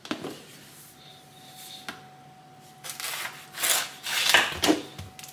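Kitchen knife cutting through a watermelon on a cutting board: a knock, then several sawing strokes through the rind, loudest in the last two seconds.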